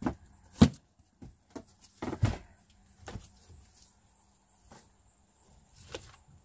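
Firewood pieces being tossed and knocking as they land: a string of separate short wooden knocks and thumps at uneven intervals, the sharpest under a second in.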